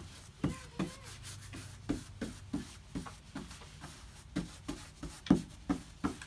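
Uneven series of light knocks with rubbing on wood, about three a second, in a small room.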